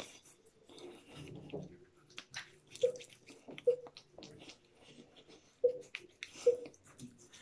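Fingertips rubbing and patting a gritty facial scrub with bamboo microgranules over damp skin: soft wet squelches and clicks, with a few sharper wet smacks in the second half.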